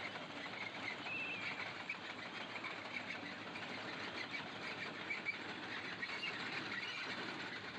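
Birds chirping faintly now and then over a steady outdoor background hiss, with a short warbling call about a second in.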